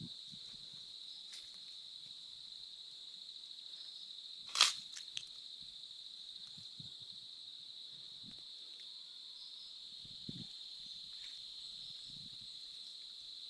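Insects droning steadily on one high pitch, with a sharp rustle or snap about four and a half seconds in and a few soft low thumps.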